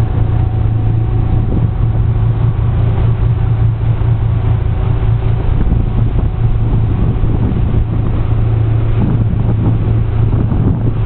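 An engine running steadily under way: a deep, even drone with a rushing noise over it, holding the same pitch without revving up or down.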